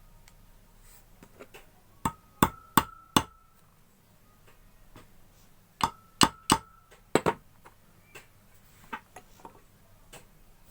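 Hammer tapping the key and impeller onto a water pump motor's shaft to seat them tight: two bursts of about four sharp metal strikes each, with a short ringing.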